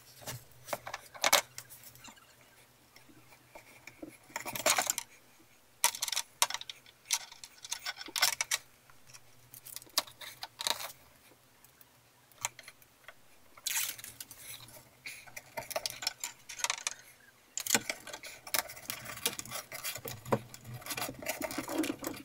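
Hands at work sticking grow-light tubes down with double-sided gel tape: scattered irregular clicks, taps and rustles of tape, tool and plastic light housings being handled, busier in the second half.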